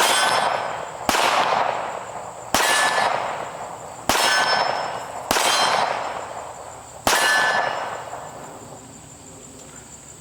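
Six 9mm shots from a Smith & Wesson Competitor-series pistol, fired at an uneven pace, each followed by a ringing tail that fades over about a second.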